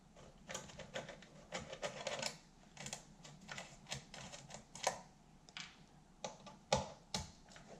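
Flat-blade screwdriver working the slotted screws on the metal case of a vintage electric blanket controller: a run of irregular light clicks and scrapes, metal on metal, as the screws are undone and the case is handled.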